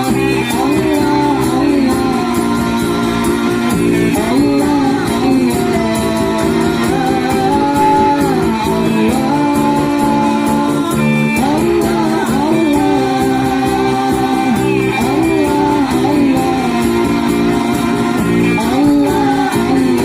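Sholawat, Islamic devotional songs, sung by a group with instrumental accompaniment, the melody gliding and wavering over steady held notes.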